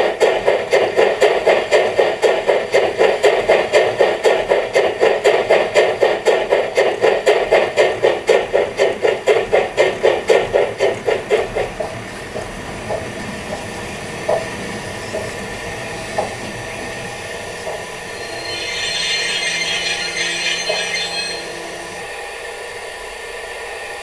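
A model steam-locomotive sound unit, on a KISS garden-railway model of the HSB Brockenlok 99 234 (class 99.23), playing exhaust chuffs at about four to five a second. The chuffs slow slightly and stop about halfway through. After that come a few light clicks and, near the end, a hiss lasting about three seconds.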